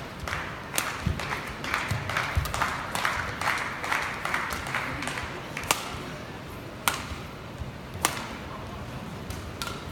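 Badminton rally: sharp cracks of rackets striking the shuttlecock, the last three about a second apart, with a few dull footfalls on the court.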